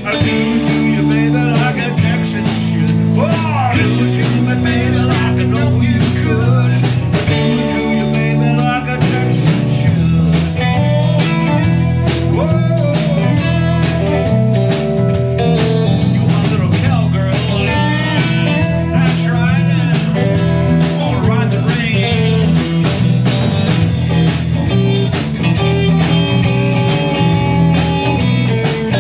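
Live blues-rock band playing: electric guitars, electric bass and drum kit over a steady beat, with a lead guitar line of bending, wavering notes.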